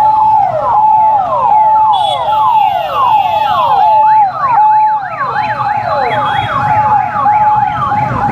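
Several police vehicle sirens sounding together. One repeatedly holds a steady tone and then drops in pitch, about one and a half cycles a second. Others sweep quickly up and down, with a denser set of rising sweeps joining about halfway through, over a low rumble of vehicles.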